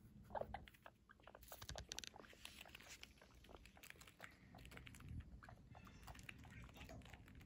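Faint, quick clicks and taps of guinea pigs scurrying across the floor, their feet pattering on the mat.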